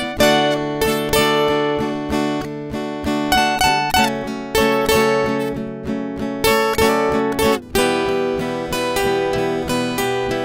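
Acoustic guitar strumming chords in a steady rhythm, with a brief break in the strumming about three-quarters of the way through.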